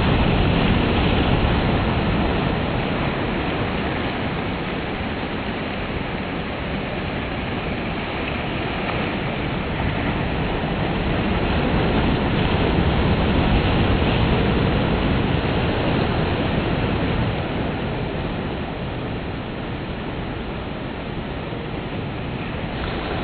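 Surf breaking and washing up a sandy beach: a steady rush that swells and eases slowly over several seconds.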